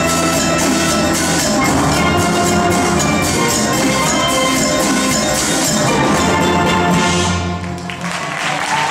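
Steel band playing, the high ringing notes of the lead pans over sustained low bass pans. The piece ends about seven and a half seconds in, and applause starts just before the end.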